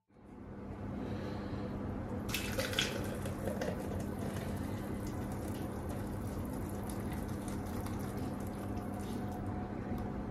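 Thick smoothie pouring steadily from a blender jug into a glass pitcher. A few knocks of the jug come about two seconds in.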